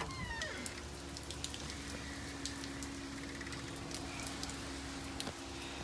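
Rain falling steadily, with scattered drops ticking close by. A faint steady hum runs underneath.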